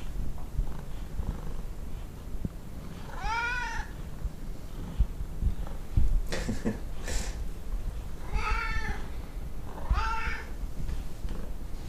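Tonkinese cats meowing to be fed: three drawn-out meows that rise and then fall in pitch, about three and a half, eight and a half, and ten seconds in. A sharper, noisier sound about six seconds in is the loudest moment.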